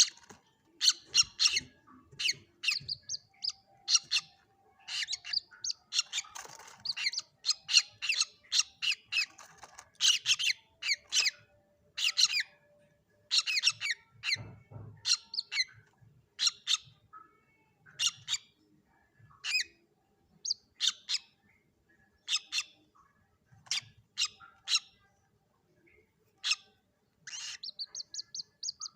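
Common moorhen chicks calling: short, high-pitched peeps and squeaks repeated in irregular bursts, with a quick stuttering run of notes near the end.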